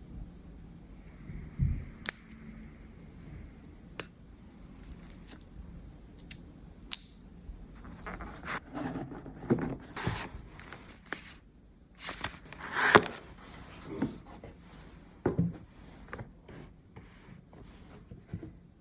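Close-up handling noises: scattered sharp clicks and short scraping, rustling sounds, busiest in the second half with the loudest scrape just past the middle.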